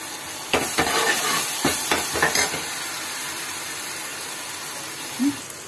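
Onion-tomato masala with spices frying in ghee in an aluminium pan, a steady sizzle. A steel ladle scrapes and knocks in the pan about five times in the first two and a half seconds as the masala is stirred.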